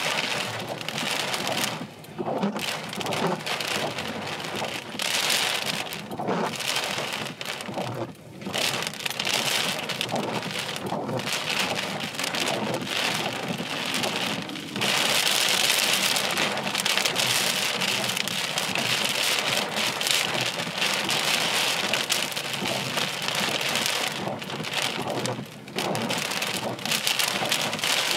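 Heavy thunderstorm rain, a steady hiss that swells and eases in waves, with brief lulls about 2, 8 and 25 seconds in.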